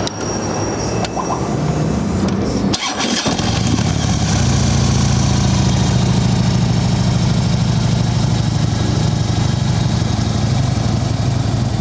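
A 2012 Harley-Davidson Electra Glide Classic's 103 cubic inch V-twin is started about three seconds in and then idles steadily through its baffled Screaming Eagle exhaust.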